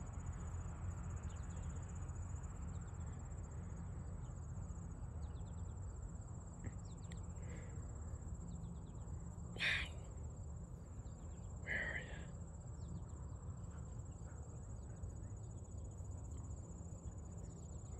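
A steady, high-pitched trill of insects chirring in the grass, with two brief sharper sounds about halfway through and two seconds later.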